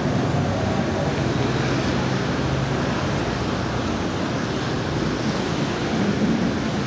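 Heavy rain falling steadily, an even, constant hiss.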